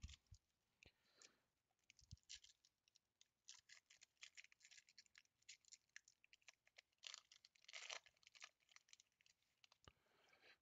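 Faint crinkling and tearing of a trading-card pack's wrapper as it is opened by hand: many small scattered crackles, thickest about three-quarters of the way through.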